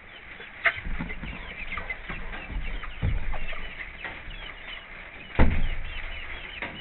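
Hens clucking and chirping softly throughout, broken by dull knocks and bumps from handling close by: one about a second in, another around three seconds, and the loudest about five and a half seconds in.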